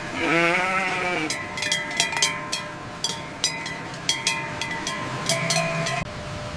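A goat gives one wavering bleat, then bells worn by grazing livestock clank and ring in irregular strikes.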